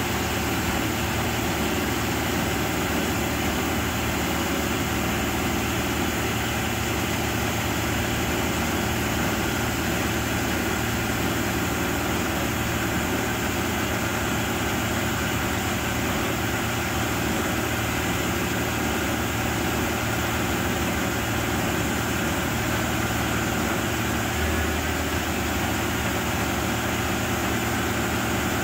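Genie S-85 telescopic boom lift's engine running steadily.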